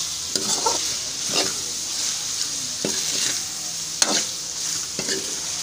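Meat pieces sizzling in a karahi while a steel spoon stirs them, with a few short scrapes and knocks of the spoon against the pan. This is the bhuna stage, frying the meat dry with its masala.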